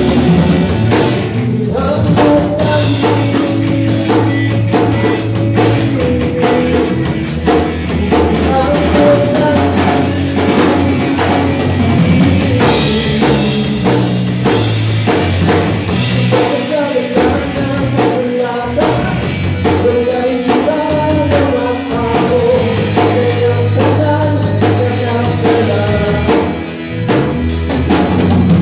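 Live band playing a Christian worship song with a rock beat: a man singing over drum kit, electric bass guitar and keyboard.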